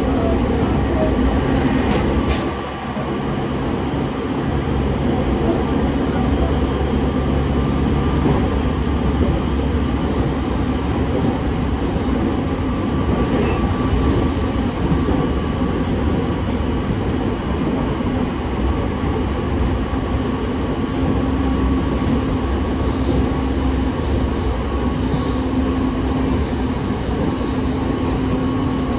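JR East 209 series 2100-subseries electric commuter train heard from inside the car while running between stations: a steady rumble of wheels on rail with a constant hum, the loudness dipping briefly about two and a half seconds in.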